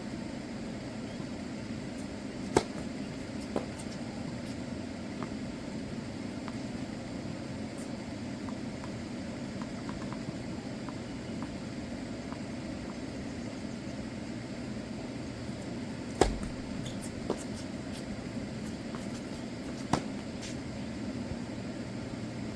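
Tennis ball struck a handful of times over a steady low background rush: a crisp pop about two and a half seconds in and another a second later, a louder pair about sixteen seconds in, and a last one about twenty seconds in.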